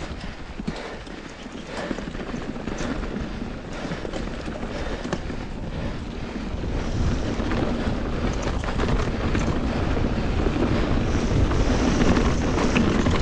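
Mountain bike riding down a loose, rocky trail: the tyres crunch over loose dirt and gravel, the bike rattles and knocks over the rough ground, and wind hits the microphone. It grows louder toward the end.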